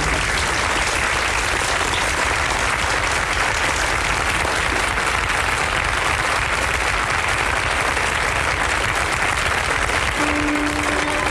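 Audience applauding steadily. About ten seconds in, held instrument notes begin to sound under the clapping.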